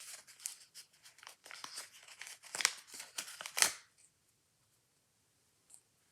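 Plastic packaging crinkling and tearing as it is opened: dense, scratchy crackles for about four seconds, the two loudest near the end, then it stops.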